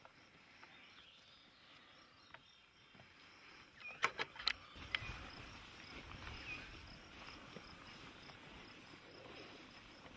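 Faint outdoor ambience, a low steady hiss, with a few sharp clicks in quick succession about four seconds in.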